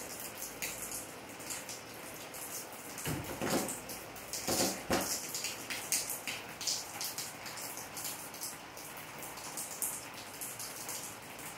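Rain falling on pavement, roofs and puddles: a steady hiss with an irregular patter of individual drops, and two louder bursts about three and five seconds in.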